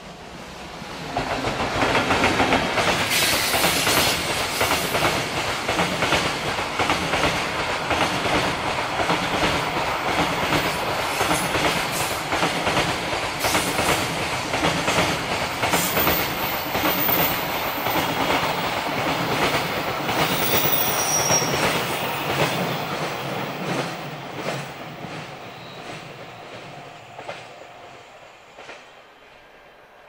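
JR Freight EF210 electric locomotive and a long train of container flatcars passing close by. Loud from about a second in, with wheels clattering over the rail joints and a few brief high wheel squeals about twenty seconds in, then fading away over the last several seconds.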